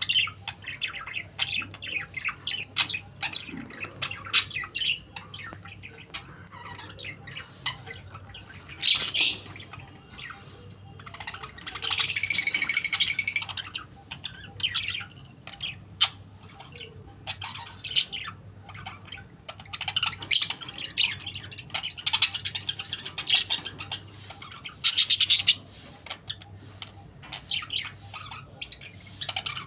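Pet budgerigar chattering with quick, high chirps and clicks, and one loud, harsh call lasting over a second about twelve seconds in.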